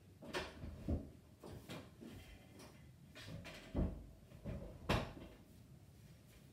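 A string of irregular knocks and scraping bumps, about eight over five seconds, the loudest near four and five seconds in.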